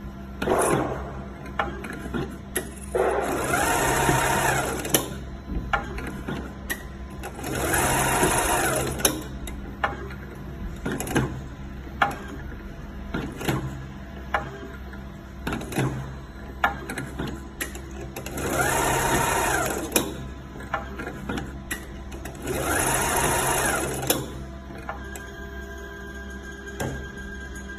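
Automatic stator winding machine winding copper wire onto a brushless drone-motor stator: four runs of motor whine, each speeding up, holding and slowing down, with sharp clicks from the machine's clamps and indexing between runs.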